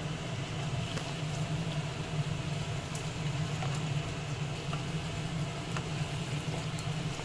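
Onion, capsicum and chilli sauce sizzling in a non-stick kadai as it is stirred and cooked down, with faint spatula scrapes and clicks over a steady low hum.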